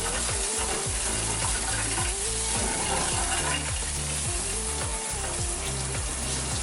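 Shower water running, a steady hiss, under background music with a steady beat and bassline.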